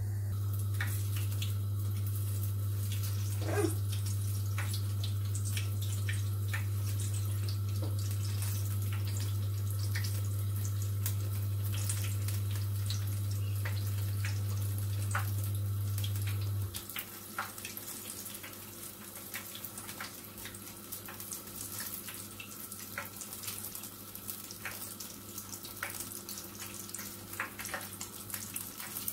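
Battered apple rings deep-frying in a pan of hot oil: a steady sizzle with many small crackles and pops. A loud low hum runs alongside and cuts off suddenly a little over halfway through.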